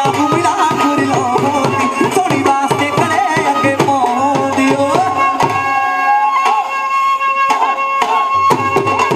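Punjabi bhangra folk music: a fast beat of low drum strokes, about three a second, each sliding down in pitch, under a melody. The drums drop out for a couple of seconds in the second half, then come back in.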